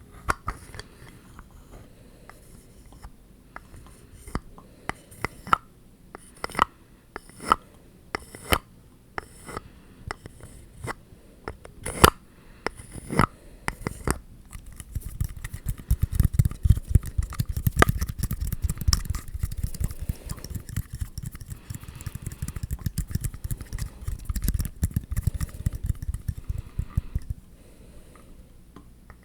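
ASMR tapping and scratching on objects: separate sharp taps, about one a second, for the first half, then fast, continuous scratching from about halfway that stops shortly before the end.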